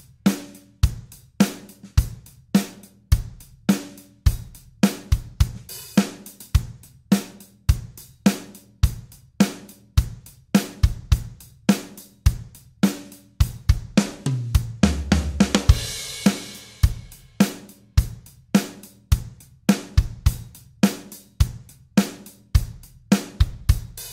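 Background music with a steady drum-kit beat of hi-hat, snare and bass drum, and a cymbal swell with a deep bass hit about fifteen seconds in.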